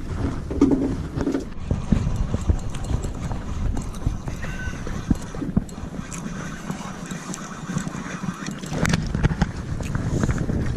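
Wind buffeting the microphone with a steady low rumble, over a run of irregular clicks and knocks.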